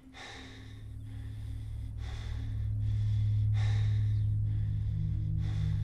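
Heavy breaths and gasps from an upset person, one every second or two, over a low sustained note of background music that swells louder over the first three seconds and then holds.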